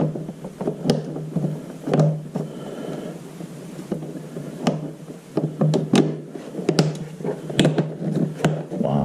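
Plastic scooter body panels being handled and pressed into place, with a string of irregular sharp clicks and knocks as their tabs and clips snap into position, coming thicker in the second half.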